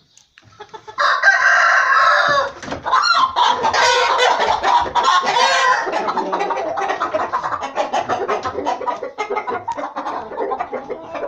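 A young Aseel (Indian game) rooster squawking and clucking in alarm as it is caught and held, with scuffling and wing flaps. The calls go on almost without a break from about a second in.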